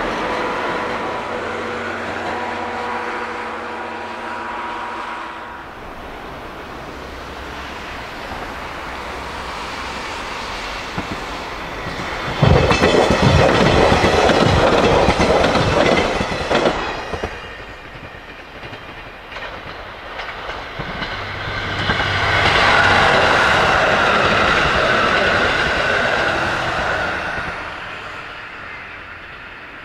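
Train running on the rails. It starts as a steady hum, then from about twelve seconds in comes a loud stretch of wheels clattering over rail joints. A second loud swell of train noise rises in the second half and fades toward the end.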